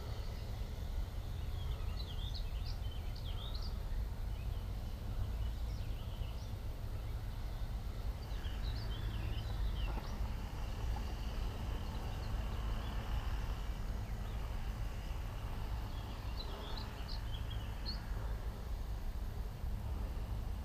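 A songbird singing three short phrases of quick high chirps, several seconds apart, over a steady low rumble.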